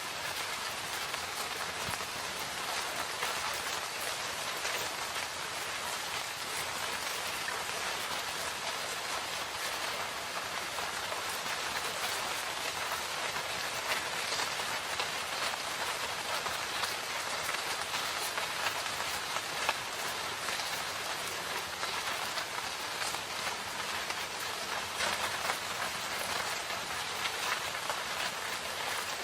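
Steady rain falling: an even hiss with many separate drop hits.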